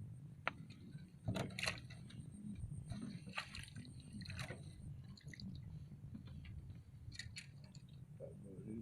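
Irregular soft clicks and wet, squishy handling sounds over a steady low hum, loudest about one and a half seconds in and again around three to four seconds in.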